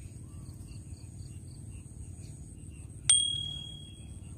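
A small bell on a fishing rod struck once, about three seconds in, ringing out and fading over about a second: the sign of a fish touching the bait. Insects chirp steadily in the background.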